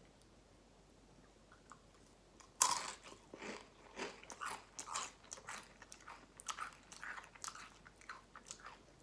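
A person biting into a Takis rolled corn tortilla chip, with one loud crunching bite about two and a half seconds in, then chewing it with a run of short crunches, a couple a second.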